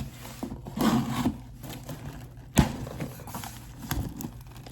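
A package being handled and opened: irregular rustling with several sharp clicks and knocks, the loudest about two and a half seconds in.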